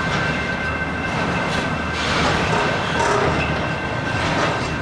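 Canadian Pacific freight train rolling along the rails: a steady rumble of cars and wheels, with a thin, steady high-pitched whine over it.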